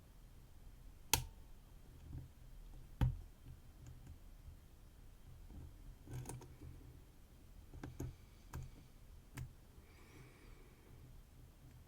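A lock pick clicking and tapping against the pins inside a GNS lock cylinder during single-pin picking: about six sharp, faint clicks a second or more apart, the loudest two near the start, while the picker searches for the last pin.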